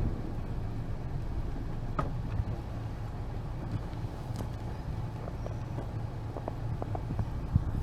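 Steady low rumble of a car driving on a snowy road, picked up by an action camera mounted on the outside of the car, with a few faint clicks.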